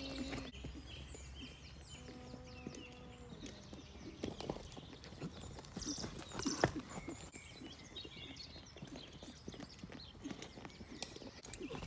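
Hoofbeats of a saddled horse cantering on the lunge over soft, muddy turf: irregular dull thuds, with one louder strike about six and a half seconds in.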